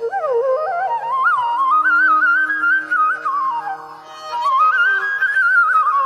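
Music: a solo flute melody in Carnatic style, its notes sliding and ornamented, over a steady drone. The melody rises in two long phrases and falls away near the end.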